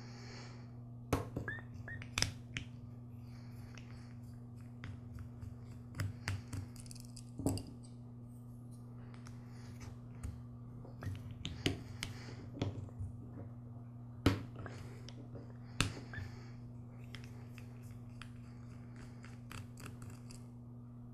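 Scattered light clicks and ticks of a screwdriver working a small screw out of a two-cycle trimmer carburetor's throttle body, the metal parts shifting in the hand, over a steady low hum.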